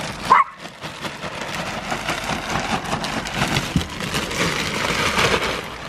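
Potting soil pouring out of a plastic bag into a raised bed: a steady gritty rustle like light rain, with the bag's plastic crinkling as it is shaken out.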